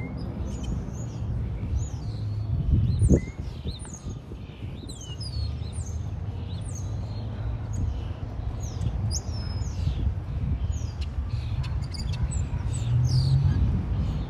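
Small songbirds chirping and twittering throughout over a steady low street rumble. A louder whoosh swells and cuts off abruptly about three seconds in, and a vehicle engine grows louder near the end.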